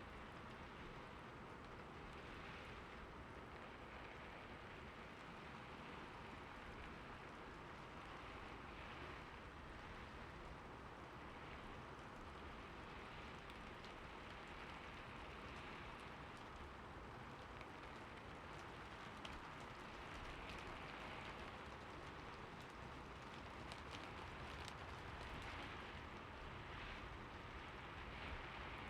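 Soft, steady rain falling in a city, an even hiss of drops, with a few sharper drip ticks in the later part.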